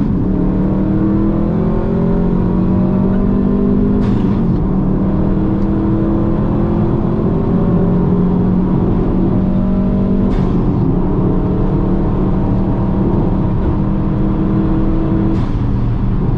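Subaru WRX turbocharged flat-four engine pulling hard on a race track, its note climbing between gear changes. There are short breaks with a sharp click about 4, 10 and 15 seconds in.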